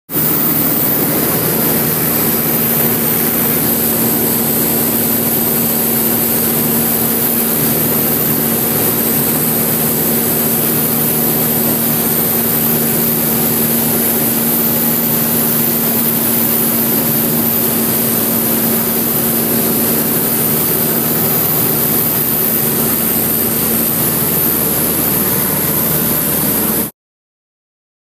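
A small propeller plane's engine and propeller, heard from inside the cabin: a loud, steady drone with a constant hum, cutting off suddenly near the end.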